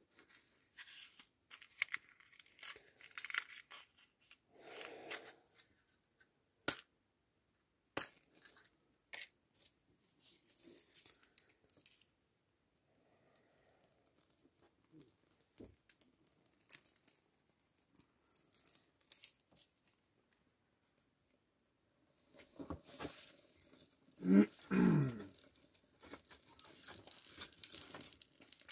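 Quiet rustling and crinkling of birch bark and kindling being handled and lit with a match at a small wood stove, with scattered sharp clicks. Near the end, a short loud vocal sound in two falling bursts.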